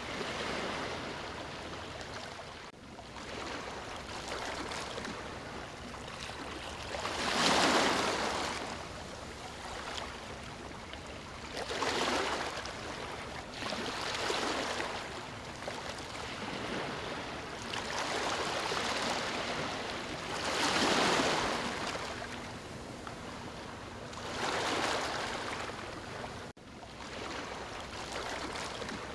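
Ocean waves breaking on the shore: a steady hiss of surf that swells and fades every few seconds, with the louder waves washing in about a quarter, two-thirds and near the end of the way through.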